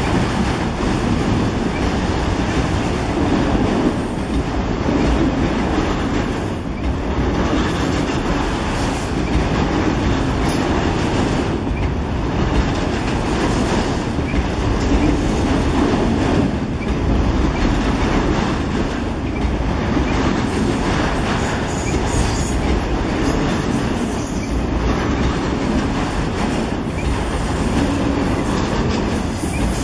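A long freight train of autorack cars rolling past close by: a steady loud rumble with the clatter of steel wheels over the rail joints, dipping briefly every few seconds as the gaps between cars go by.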